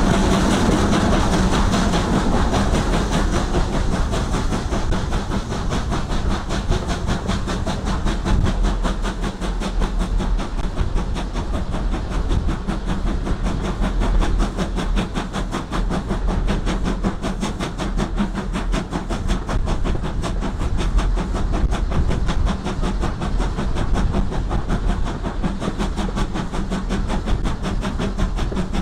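Steam-hauled passenger train running steadily behind BR Standard Class 2 2-6-0 locomotive 78022. The continuous rumble and clatter of the coaches' wheels on the rails mixes with the hiss of the locomotive's steam exhaust.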